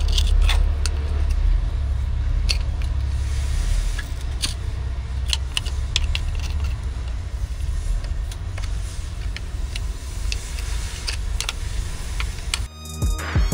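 Screwdriver tip scraping and picking caked dirt off a Hitachi Zaxis 70 excavator's travel motor housing: irregular scratchy scrapes and small metallic clicks over a steady low rumble. Music starts near the end.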